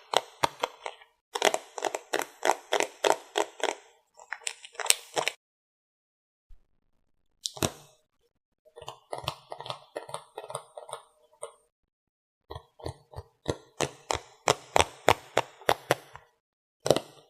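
Close-up ASMR tapping on makeup items: runs of quick taps or clicks, about five a second, in several groups with sudden dead-silent gaps between them.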